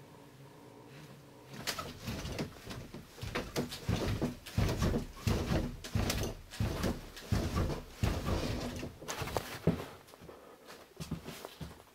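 Irregular knocks, thumps and rustling in a small room. They start about two seconds in, come thick and loud through the middle, and thin out near the end: someone moving about and handling things.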